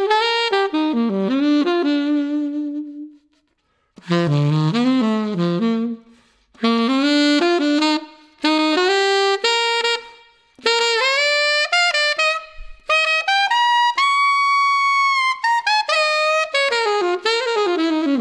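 Yanagisawa WO33 alto saxophone fitted with a solid silver KZ3 neck, played solo in several melodic phrases with short breaks for breath between them. About two-thirds of the way through there is a long, held high note.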